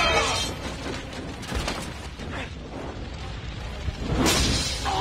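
Movie battle-scene soundtrack: film score under rumbling battle noise, with a sudden loud crash about four seconds in.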